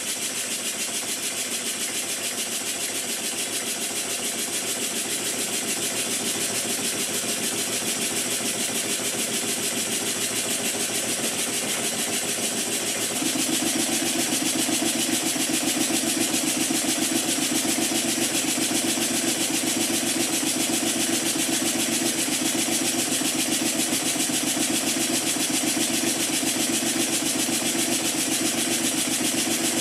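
Small model steam engine (horizontal mill engine, circa 1896) running steadily on compressed air: a fast, even chuff of exhaust beats with a constant hiss. Its too-thin crank pin is working loose in the crank webs. The sound gets a little louder and fuller about 13 seconds in.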